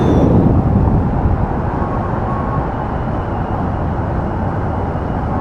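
Mercedes-Benz eActros battery-electric truck driving on a road: steady tyre and road noise with no diesel engine note, a little louder in the first second.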